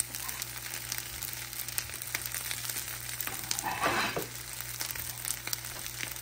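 Fried rice sizzling in a nonstick frying pan, with scattered small crackles. About four seconds in, a wooden spatula scrapes along the pan as it pushes the rice together.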